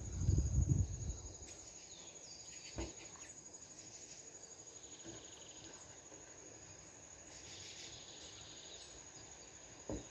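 An insect trills steadily in a fast, even pulse, with a few short bird chirps. A low rumble in the first second and two soft knocks, one about three seconds in and one near the end.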